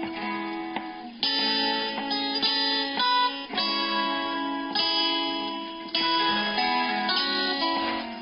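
Instrumental music played on a strummed acoustic guitar, with a new chord struck every second or two and plucked notes ringing between them.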